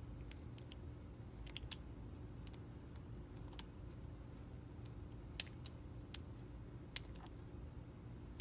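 Snap-off utility knife shaving thin slices off a clear soap bar: scattered crisp clicks and crackles at an irregular pace, the loudest about five and a half and seven seconds in, over a faint steady hum.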